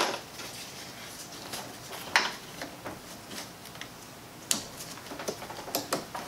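Hands working a plastic retaining clip off a fuel line quick-connect fitting: a few small, sharp clicks and rustles a second or two apart.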